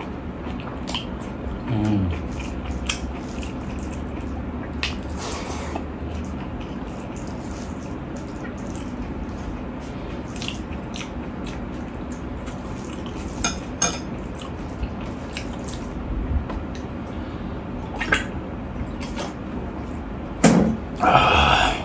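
Hand-eating sounds at a steel plate: fingers mixing rice with lentil dal, a spoon ladling dal from a glass bowl, and wet chewing and lip-smacking. Scattered small clicks run throughout, with a louder wet burst near the end.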